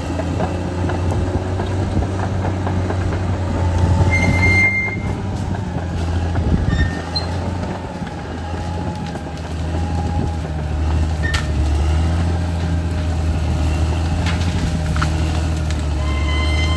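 Caterpillar D6R XL bulldozer's diesel engine running under load, its note easing and building again as it works, with occasional short high squeaks and clanks from the machine.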